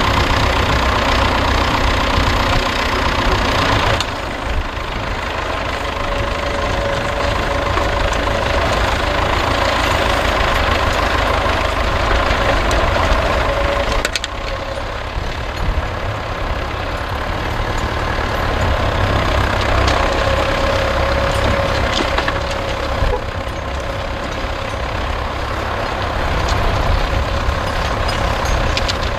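Tractor engine running steadily under load as it pulls a mounted plough through the soil. The sound changes abruptly about four and fourteen seconds in.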